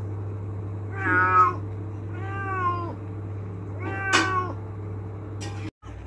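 Domestic cat meowing three times, about a second apart, each call about half a second long, over a steady low hum. The cat is demanding, angrily, to have the door opened.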